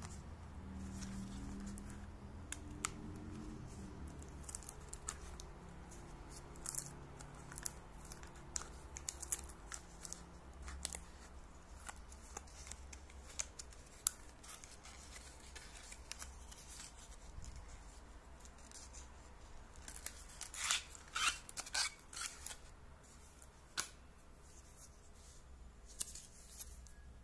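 A small cardboard box being opened by hand: scattered crisp clicks, scrapes and rustles of card as the end tab is pulled open and a card tray of pen refills is slid out, with a quick flurry of sharp clicks a little past two-thirds of the way through.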